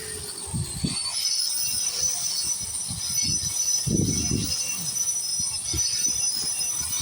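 Angle grinder running with a steady high whine as it grinds paint off a concrete foundation, with uneven low rumbling as the wheel works against the wall.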